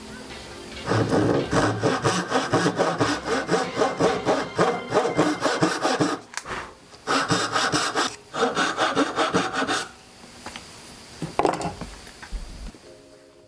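Hand saw ripping a kerf down into the end grain of a softwood tenon, in quick back-and-forth strokes, with a short pause partway through. The sawing stops about ten seconds in, followed by a faint knock.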